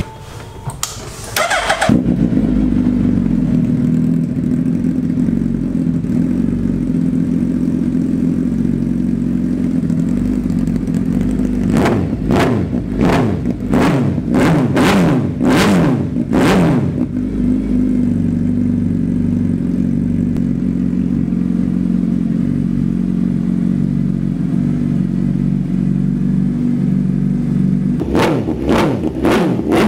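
Superbike engine idling through a loud exhaust, blipped hard about seven times in quick succession about twelve seconds in, then idling again and revved once more near the end.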